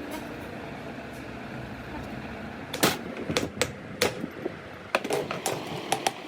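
A steady low background, then from just under halfway in a run of sharp, irregular clicks and knocks, like metal parts and tools being handled on a workbench.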